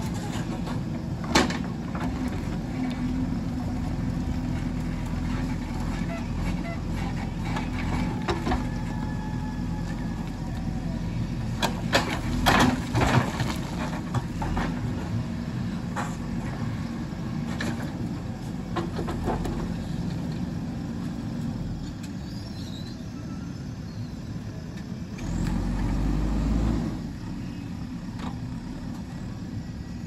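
JCB backhoe loader's diesel engine running steadily while the backhoe arm digs, with scattered sharp knocks of the bucket against soil and stones, a cluster of them about 12 seconds in. A brief louder low rumble comes about 25 seconds in.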